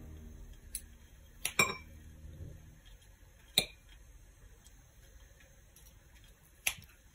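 Metal fork and kitchen scissors clinking against a glass bowl as canned jackfruit is snipped into it: a handful of separate sharp clinks spread out, the loudest about a second and a half in.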